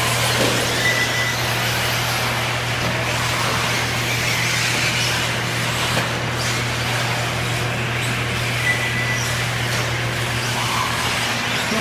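1:8-scale electric off-road RC buggies running on a dirt track: a steady noisy wash with a constant low hum underneath.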